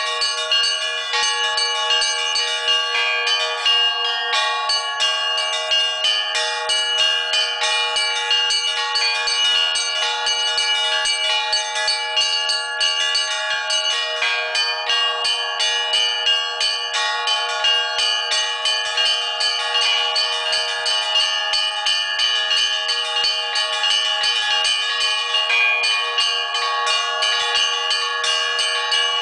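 Russian Orthodox church bells rung in a continuous, fast peal: many quick strikes follow one another while the bells' tones ring on steadily.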